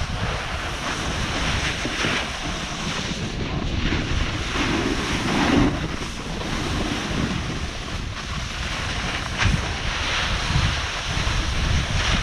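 Wind rushing over an action camera's microphone, mixed with a snowboard scraping and hissing over packed snow during a downhill run, with the noise surging and easing as the rider turns.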